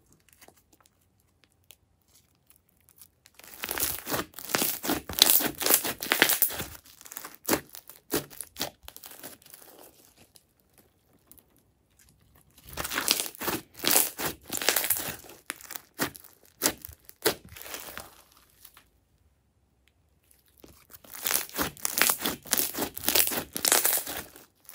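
Hands squeezing, pressing and stretching crunchy foam-bead slime: sticky crackling and crunching. It comes in three bouts with quiet pauses between them.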